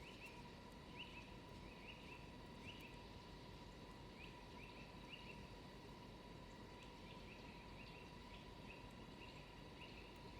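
Faint, quick bird chirps repeating in small clusters, about two to three a second, over a low background hiss with a faint steady tone.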